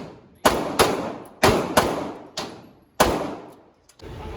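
Six gunshots in quick, uneven succession at an indoor range, each with a sharp crack and a long echoing tail. They stop about three seconds in.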